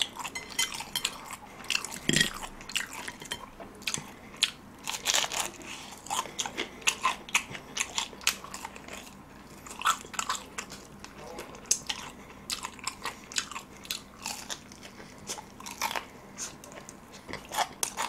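Close-up crunching and chewing of extra-crispy fried chicken, with many quick, irregular crackles as the battered crust is bitten and chewed.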